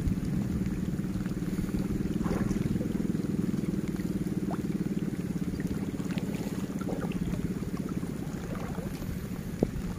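A steady low engine hum, strongest in the first half and easing off toward the end, with a few faint small water sounds and a sharp click near the end.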